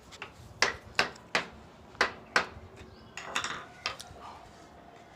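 Hammer knocks on wood: about five sharp, separate knocks in the first two and a half seconds. A rougher clatter with some ringing follows about three seconds in, then one last knock.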